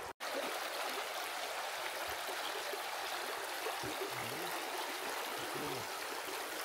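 Fast-flowing mountain river: a steady rush of running water.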